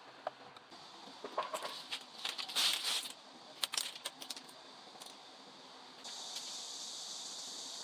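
Small hard plastic parts of a mechanical keyboard clicking and clattering as it is put back together, in quick irregular clusters. About six seconds in, a steady hiss comes up.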